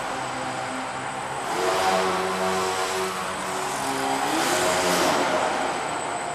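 Electric motor and propeller of a small foam RC aerobatic airplane buzzing in flight, its pitch shifting with the throttle and rising sharply a little past four seconds in.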